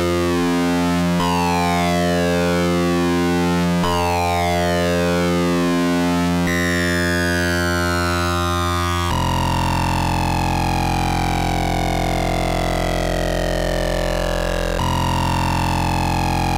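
Eurorack modular synthesizer drone from Rossum Trident oscillators wave-spliced through a Klavis Mixwitch: a sustained buzzing tone rich in overtones, thin high partials gliding downward. The timbre and pitch shift abruptly every few seconds as the oscillator knobs are turned.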